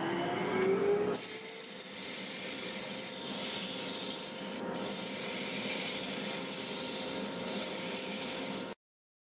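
Wood lathe's motor whine rising as it spins up, then 120-grit sandpaper held against the spinning wooden bowl: a steady hiss over a faint steady hum. Cuts off suddenly near the end.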